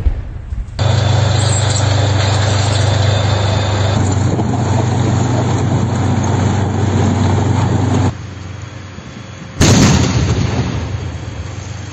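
Engine of a tracked armoured engineering vehicle with a dozer blade running close by, starting and stopping abruptly at cuts. Near the end, a single loud blast dies away over a second or two: an explosive charge or mine detonated during mine clearing.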